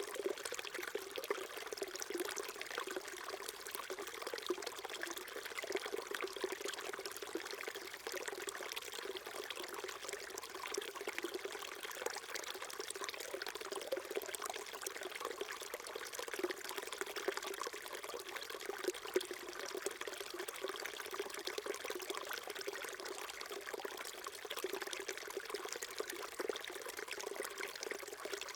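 A small stream flowing steadily over stones, a continuous babbling and trickling of water.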